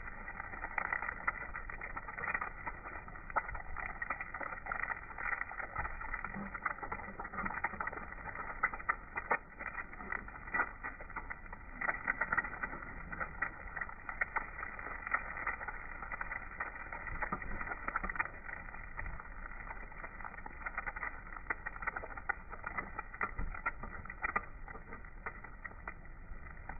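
Egg frying in a hot pan: a steady sizzle with frequent small crackling pops throughout.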